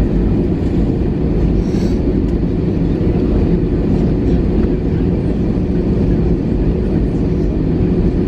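Steady, loud low roar of an Airbus A321-211's CFM56 jet engines at high thrust during departure, heard inside the cabin.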